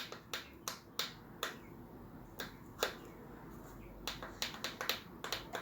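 Sharp, irregular clicks of a treadmill's console buttons being pressed, bunched in the first second and a half and again toward the end.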